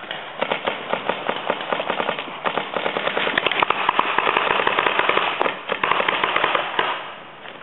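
Paintball markers firing rapid strings of shots, many pops a second, dying away near the end.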